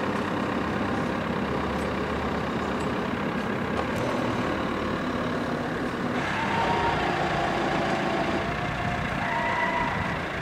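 Steady rumble of street traffic. A few short held tones come in about six seconds in and again near the end.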